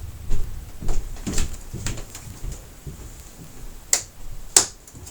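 Hands handling the TV's plastic and metal parts during disassembly: a scattered series of short clicks and knocks, the two loudest close together near the end.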